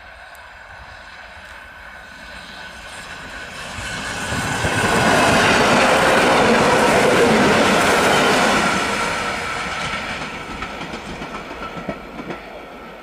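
Electric multiple unit passing at speed without stopping. A rush of wheels and air builds over the first few seconds, is loudest for about four seconds as the cars go by, then fades, with a run of rhythmic wheel clicks over the rail joints near the end.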